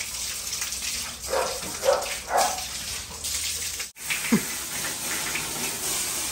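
Water spraying steadily from a garden hose onto wet dogs and a concrete floor. A dog gives a few short cries in the first half, and one falling whine just after a brief break near four seconds.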